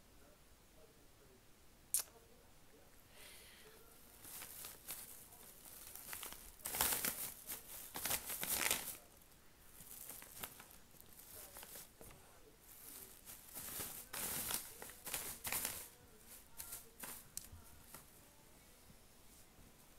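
Packaging crinkling and tearing in bursts, loudest about seven to nine seconds in and again from about thirteen to sixteen seconds, with a single sharp click about two seconds in.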